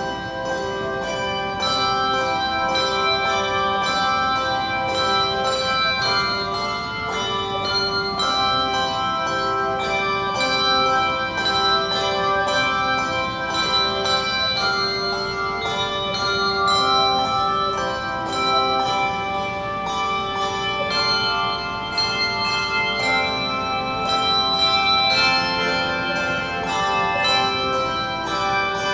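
A handbell choir playing a piece: many struck bells with overlapping tones that ring on between strokes, at a steady pulse.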